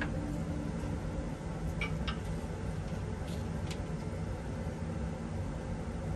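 Steady low hum of laboratory ventilation. A few faint light clicks come around the middle as a glass Erlenmeyer flask is set down on the bench.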